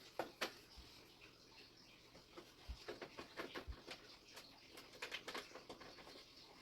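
Faint, scattered clicks and rustles of power-supply cables being handled and pushed through a computer case's cable-routing holes.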